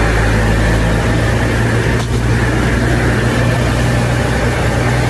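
Hurricane-force wind and heavy rain blowing hard and steadily, with wind buffeting the microphone and a steady low hum underneath.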